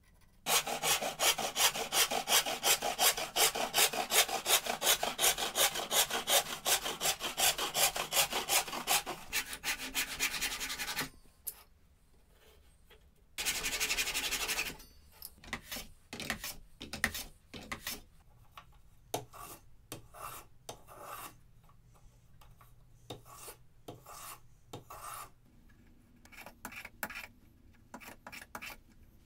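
Wood being hand-sawn in fast, even strokes, about five a second, for some ten seconds. After a pause comes a short burst of sawing with a Japanese pull saw, then slower, separate strokes of a metal hand plane shaving wood.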